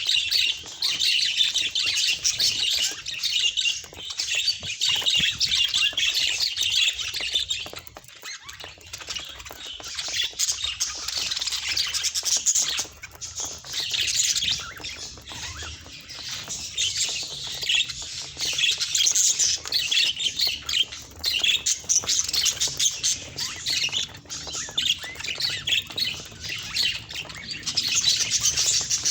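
Budgerigars chattering and warbling in a dense, continuous stream of squawks and chirps, easing off for a few seconds about eight seconds in.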